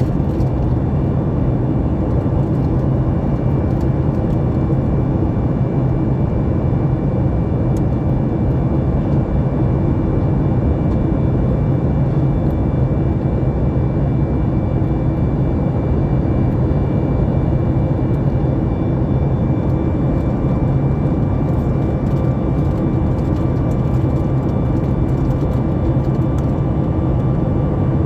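Steady cabin noise inside a Boeing 737 MAX 9 airliner in flight: the CFM LEAP-1B engines and rushing air make an even roar with a steady low hum and a few faint steady tones above it.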